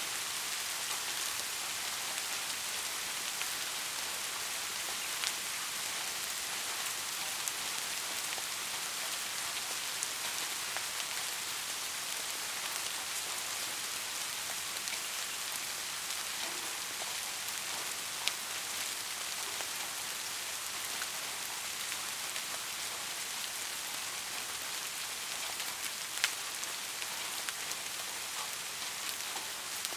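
Steady rain falling on a roof, an even hiss with a few louder single drops ticking now and then.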